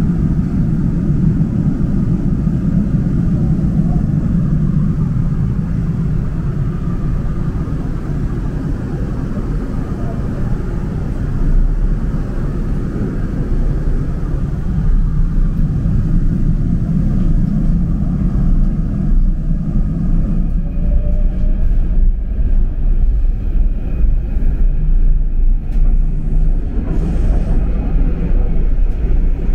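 Steady low rumble of a Seoul Metro Line 2 subway train, heard from inside the car.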